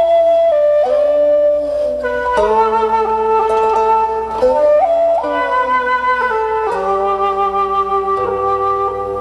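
Slow instrumental music with a flute carrying the melody over sustained lower accompanying notes.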